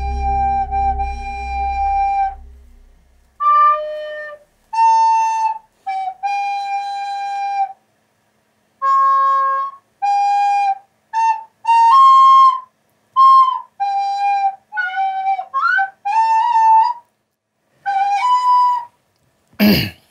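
A solo melody of single held notes on one pitched instrument, played haltingly in short phrases with silent gaps between them. A low musical drone under the first notes fades out over the first three seconds. A sudden sharp noise comes just before the end.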